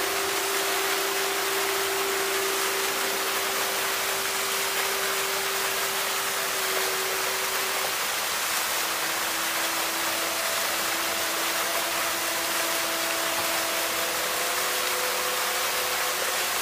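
Fountain jets splashing steadily in the basin of a kinetic sculpture, a constant rushing of water, with faint slow held musical tones over it that shift to a new pitch every few seconds.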